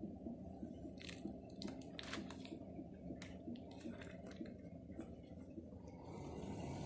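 Faint handling noise: a scatter of sharp clicks and crinkles over a steady low background hum, as the camera is moved close over items on the table.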